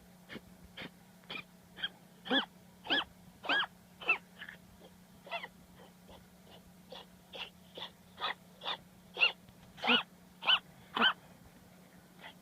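Miniature dachshund wheezing: a rapid run of short, high-pitched wheezing squeaks, about two a second, loudest near the end. This is the laboured breathing of bronchitis.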